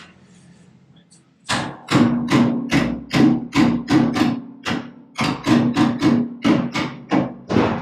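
A run of hammer blows on sheet steel, about three a second with a brief pause midway, each one ringing.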